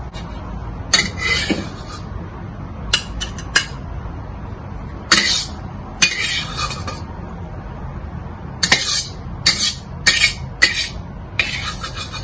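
Metal utensils clicking and scraping against a dish in short, irregular bursts, some with sharp clicks.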